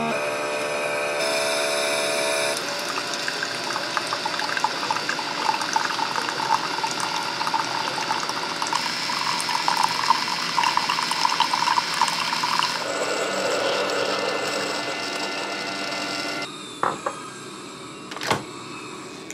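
Single-serve coffee maker brewing: the pump hums steadily while a stream of coffee pours and splashes into a ceramic mug. The brew stops about three seconds before the end, followed by a few light clicks.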